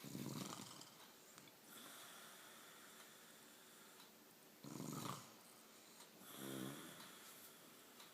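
A woman snoring in her sleep: a snore at the start and another about five seconds in, the second followed by a shorter snore with a distinct pitch.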